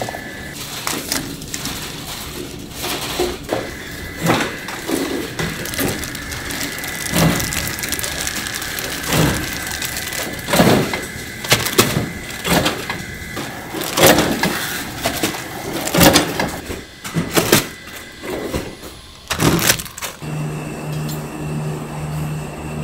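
Work noise in a food-production kitchen: irregular knocks and clatter of utensils and equipment over a steady high machine whine, with a low hum starting near the end.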